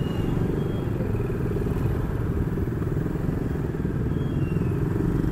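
Motorcycle engine running steadily under way, a dense low pulsing rumble with a few faint short high tones in the background.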